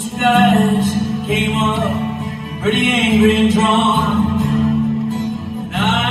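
A male singer singing with his own strummed steel-string acoustic guitar in a live solo performance. He sings phrase after phrase over steady chords.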